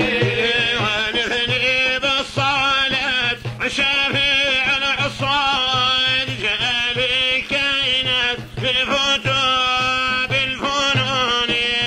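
A man singing an old Arabic qasida solo, in long, wavering, ornamented lines, with a low regular pulse about twice a second underneath.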